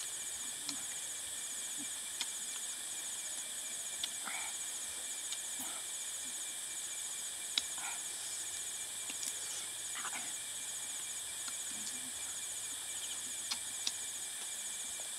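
Insects trilling steadily in a high, continuous chorus, with a few sharp taps and clicks now and then.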